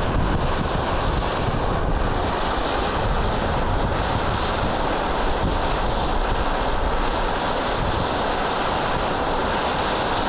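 Geothermal steam vent (fumarole) hissing steadily as steam jets out of the rocks, with wind on the microphone adding a low, uneven rumble.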